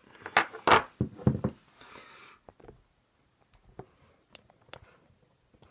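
Small lock parts being handled on a hard surface: a few loud knocks and rattles in the first second and a half, a short rustle about two seconds in, then scattered light clicks.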